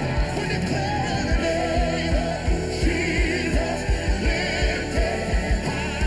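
Live worship band music: singing over guitar and drums, with a steady kick-drum beat.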